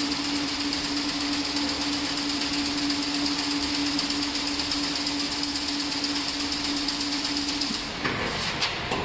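6.5-metre-wide automatic chain link fence machine running, weaving wire mesh: a steady hum over dense, even mechanical noise. Near the end the hum cuts out for a moment.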